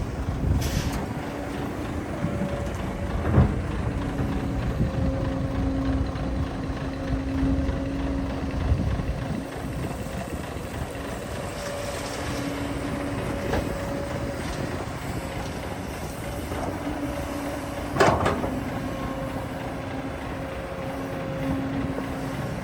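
Excavator working, its diesel engine running with a whine that comes and goes as the hydraulics take load. Two sharp knocks stand out, about three seconds in and again late on.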